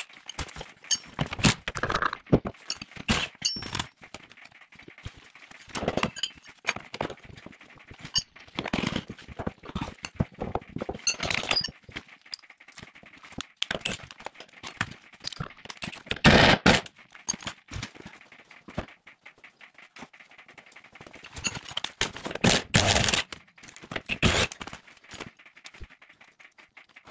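Irregular metal clanks, knocks and short rattling bursts of tools working loose a part of a car's front suspension, the sway bar mounting, until it comes free. The loudest bursts come about 16 seconds in and again around 22 to 23 seconds.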